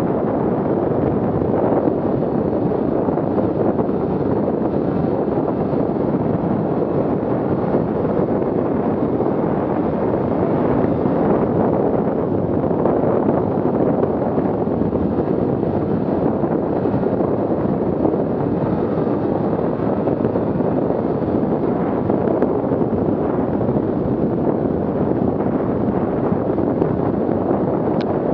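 Steady rush of wind buffeting the microphone over the muffled running of a 2017 Arctic Cat M8000's two-stroke engine as the snowmobile cruises along the trail.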